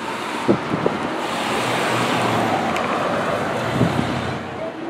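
Classic Pontiac sedan driving past: a low engine hum and tyre rush that swell as it goes by and then ease off, with two short knocks about half a second in.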